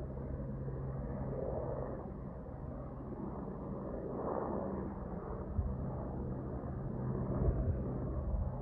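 Distant airliner climbing out after takeoff: a steady low rumble with a faint held hum.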